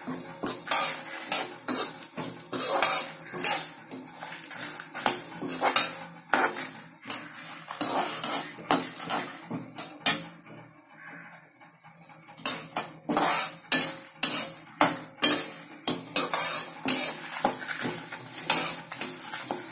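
Perforated metal skimmer scraping and clinking against a steel kadai in quick repeated strokes, stirring coriander seeds and dried red chillies as they roast. The strokes pause for about two seconds midway.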